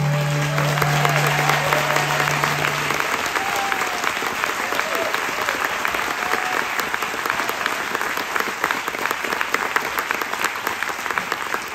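Theatre audience applauding, with a few whoops, as a last sustained guitar note fades out over the first few seconds.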